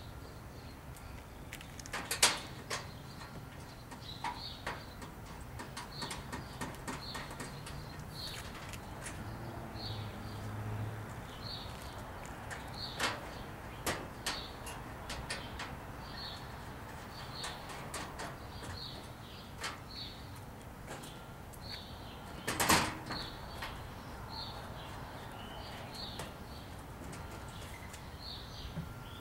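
A small bird chirping over and over, about once a second, while the metal side panels of a gas grill's cart frame are handled and fitted, giving a few sharp knocks and clacks. The loudest knock comes about two-thirds of the way through.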